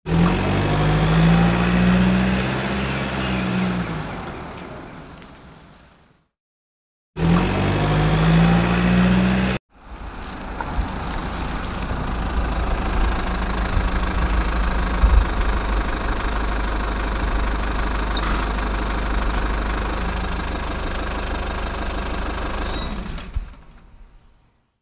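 Motorcycle engine sound effect, its note rising and falling, fading out, then a short repeat that cuts off suddenly. Then a tractor engine running steadily, fading out near the end.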